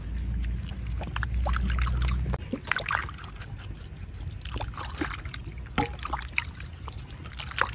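Peeled cassava roots being washed by hand in a metal basin of water: water splashing and sloshing, with scattered short clicks as the roots knock against each other and the bowl. A low rumble runs under the first couple of seconds.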